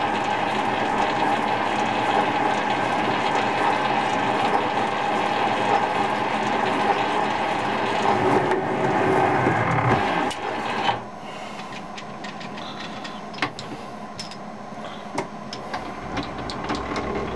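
Small metal lathe running steadily with its gears engaged for screw-cutting while a thread is cut on a steel rod. About ten and a half seconds in it stops, leaving a fainter hum and a few sharp clicks.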